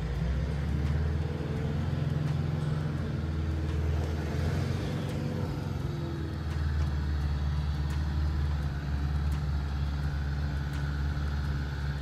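Four-wheel-drive car's engine pulling under load on a rough off-road track, a steady low drone that shifts in pitch a few seconds in.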